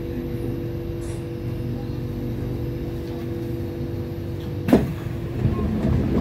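Steady equipment hum inside a stationary C751B train car. About three-quarters of the way in comes a single sharp clunk, then a noisy rush as the car's sliding doors open at the platform.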